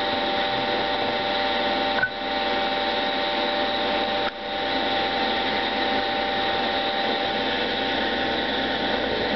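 Baldwin compression testing machine running steadily while it warms up, before the platen meets the load: a loud, even motor drone with several steady tones in it. The drone dips briefly twice, about two and four seconds in.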